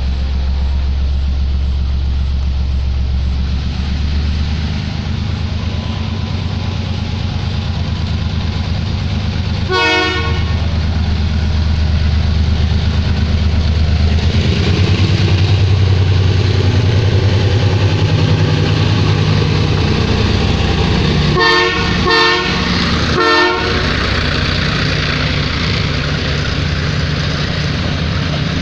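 Sri Lanka Railway M2D diesel-electric locomotive running loud and steady, its engine note shifting as it works, with one short horn toot about a third of the way in and three short toots in quick succession near three-quarters through.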